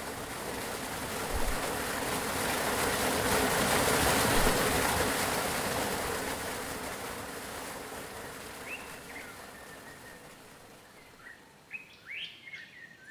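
A rushing noise swells to a peak about four seconds in and slowly fades away. Over the second half birds chirp in short calls, more of them near the end.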